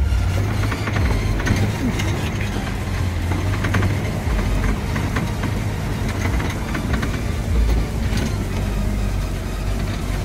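Off-road 4x4 engines running as the vehicles crawl over a rough dirt track, a steady low rumble with scattered knocks and rattles.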